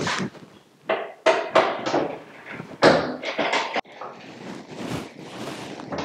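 Several short knocks and thunks from the built-in fridge's furniture-front door and its hinge fittings being handled and pushed shut, followed by a soft rustle.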